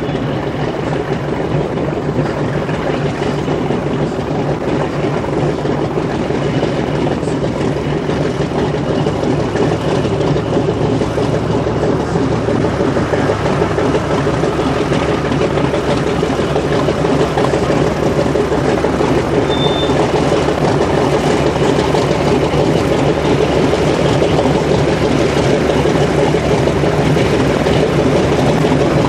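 Grumman TBM-3E Avenger's Wright R-2600 Cyclone fourteen-cylinder twin-row radial engine running steadily with the propeller turning, growing a little louder toward the end.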